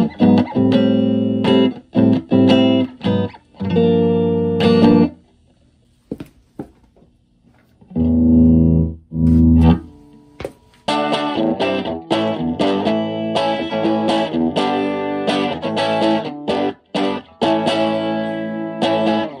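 Electric guitar played through a restored Silvertone 1431 tube amp with a 6V6 output tube, on its final test after repair. Chords ring out for about five seconds, then a short pause and a few low notes, and from about eleven seconds in the amp is turned up to 10 and the playing gets busier and fuller.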